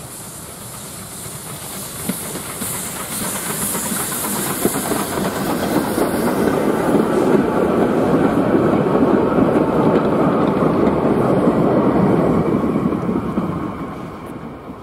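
Steam tank locomotive passing with a hiss of steam, followed by its train of four-wheeled goods vans and brake van rolling past on the rails. The sound builds as the train comes near, is loudest as the wagons go by, and fades away near the end.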